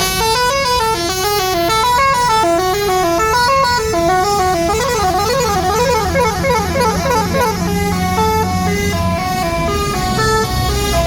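Tour bus's musical telolet horn playing a jingle of quick stepped notes, with a fast up-and-down run of notes about halfway through. The bus's engine hums steadily underneath.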